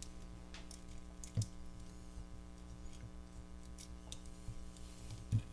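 Faint handling noise of wires and plastic connectors on a lithium-ion battery pack being moved about on a bench: light scattered clicks and rustles, with a soft knock about a second and a half in and another near the end. A steady low hum sits under it.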